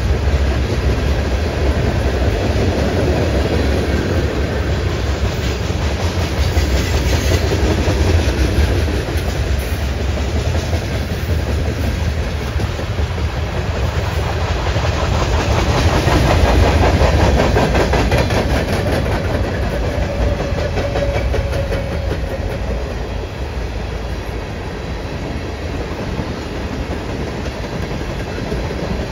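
Freight train cars rolling past, steel wheels clattering on the rails in a steady, continuous rumble.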